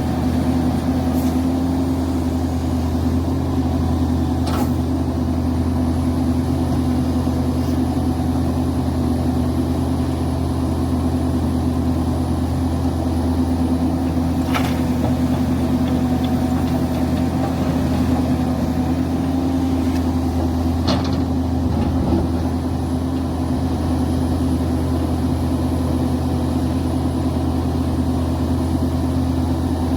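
Link-Belt excavator's diesel engine running steadily at a constant speed, with a few sharp knocks now and then.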